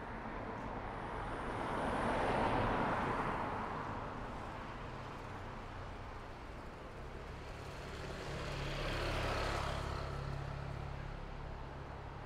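Road traffic passing on a city street: one vehicle goes by about two seconds in, and a second one, with a low engine hum, about nine seconds in.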